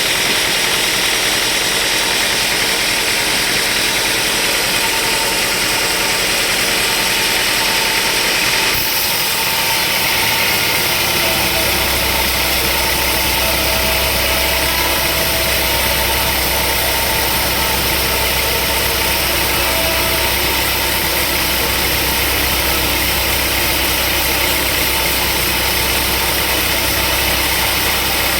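Sawmill machinery running steadily, a continuous engine-like drone with a broad hiss over it. About a third of the way in the sound shifts abruptly, and a deeper hum comes in a couple of seconds later and holds.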